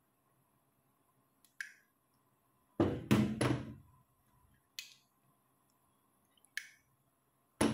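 Kitchenware knocking and clinking as a frying pan and oil bottle are handled: light clicks, a cluster of heavier knocks about three seconds in, and another heavy knock near the end.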